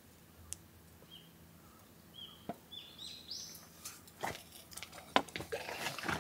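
Small birds chirping in short calls, then several light knocks and clatters as a wooden smoker lid and an enamel cup are handled on a table, the sharpest knock about five seconds in.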